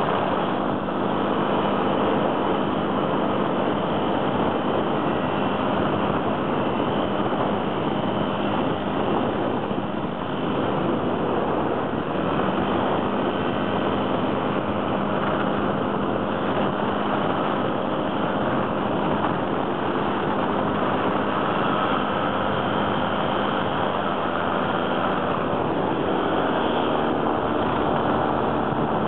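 Weight-shift microlight trike's engine running steadily through the takeoff run and the climb-out.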